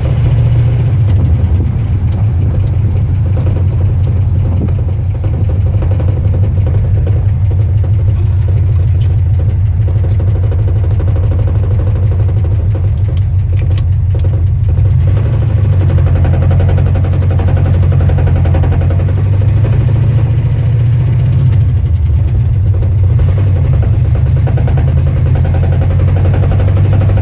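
1974 Ford F250 pickup's engine idling steadily with a low pulsing rumble, its speed lifting slightly about twenty seconds in. The engine is running after a clean start with new battery terminals fitted, which the owner credits for the fix.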